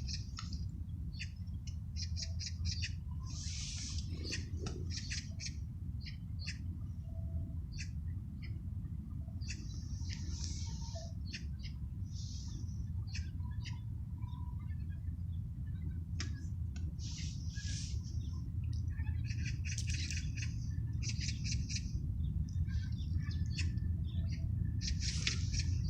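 Small birds chirping and calling over and over, in short high notes and quick trills, over a steady low rumble.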